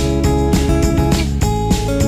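Background music with strummed guitar and a steady beat.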